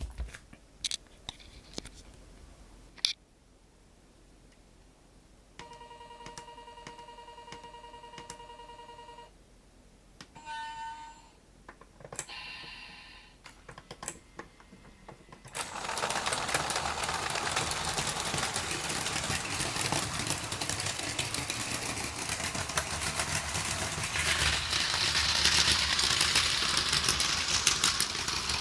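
Battery-powered Plarail Advance toy trains with m4 motor units whirring and clattering along plastic track. This steady buzz of many fine rapid ticks starts about halfway and grows louder near the end. Before it come a few sharp clicks, a steady electronic beep lasting several seconds and a short falling tone.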